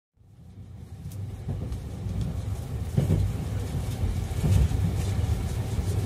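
Steady low rumble of a 681 series limited express train heard from inside the passenger car, fading in at the start, with a few knocks.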